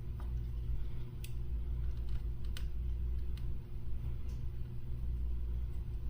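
Steady low hum, with a few faint clicks about a second, two and a half and three and a half seconds in.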